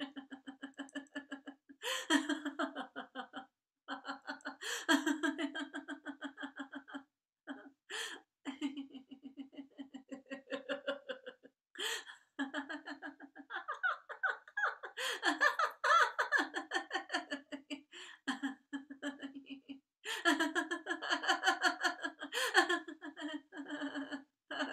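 A woman laughing heartily as a laughter-yoga exercise, deliberate laughter rather than a reaction to a joke: bouts of rapid ha-ha pulses with short pauses between them.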